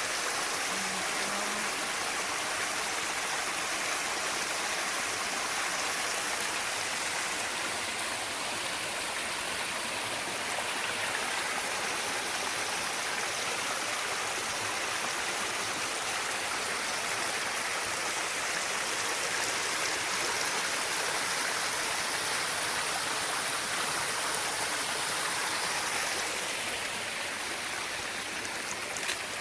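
Water of a mountain stream rushing steadily over rocks, dropping a little in level near the end.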